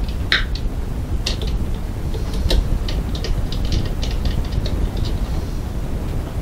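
A screwdriver tightening the top-cover screw on an old Janome sewing machine: scattered small clicks and ticks of metal against the housing, with a quicker run of ticks in the middle as the screw is turned.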